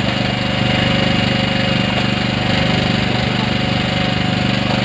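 Fishing boat's engine running at a steady speed, a loud, even drone with a rapid throb underneath.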